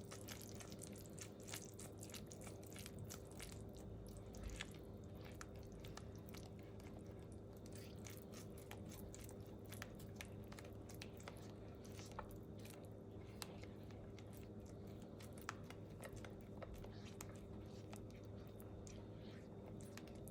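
A utensil stirring and scraping thick cake batter in a bowl: faint, irregular wet clicks and squelches, over a steady low hum.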